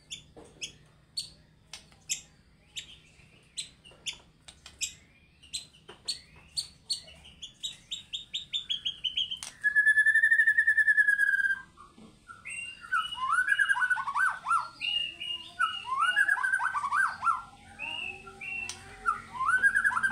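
White-rumped shama singing: a run of short, sharp notes that quickens to a rapid series, then a loud buzzy trill lasting about two seconds halfway through, followed by varied warbled phrases.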